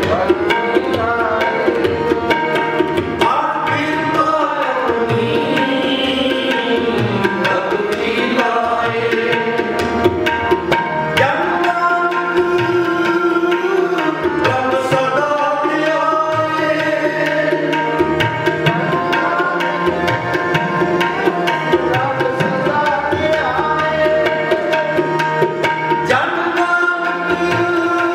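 Kirtan music: a tabla playing a steady, busy rhythm under harmoniums sustaining the melody.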